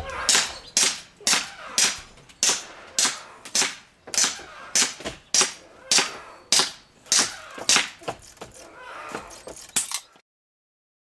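Airsoft pistol shots fired in a steady string, just under two a second, about seventeen sharp cracks; the firing stops abruptly about ten seconds in.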